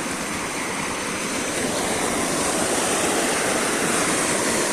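Muddy floodwater rushing steadily through a road culvert where the earth fill has washed out.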